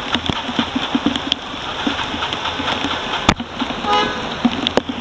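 Bicycle tyres splashing through a flooded street in heavy rain, a steady wash of water noise with many sharp ticks and one loud click a little past three seconds in. A short car horn toot sounds about four seconds in.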